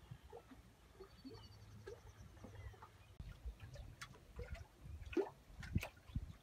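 Faint water lapping against a wooden dock, with a few sharper slaps in the last couple of seconds.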